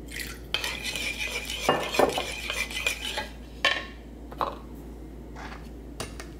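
A metal spoon clinking and knocking against a bowl while dressing ingredients are spooned in and stirred: a dense run of clinks for about three seconds, then a few separate light knocks.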